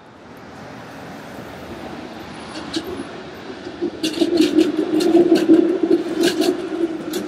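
A road vehicle approaching and passing close, getting louder over about four seconds, then a steady hum with sharp rattling clicks.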